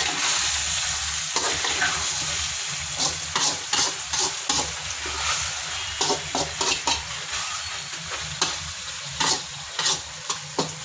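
Chicken pieces and sliced onions sizzling in hot oil in a pan, with repeated scraping and clattering strokes of a spoon stirring them.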